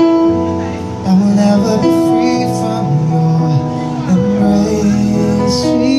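Live song: a male vocalist singing into a microphone over electronic keyboard accompaniment. The voice comes in about a second in over held chords.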